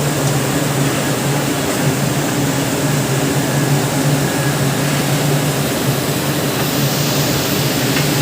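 Furnace running with a steady, loud roar and a low hum underneath, unchanging throughout.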